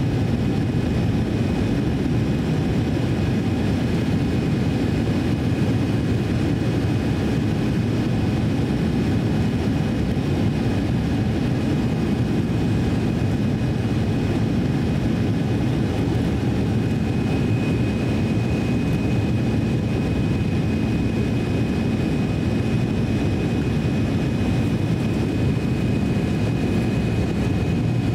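Cabin noise inside an Embraer E170 airliner on descent: a steady rumble of airflow and its twin turbofan engines, with a thin, steady high whine over it.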